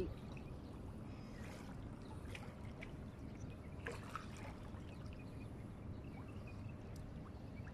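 Faint lapping and trickling of shallow water, with a few small splashes.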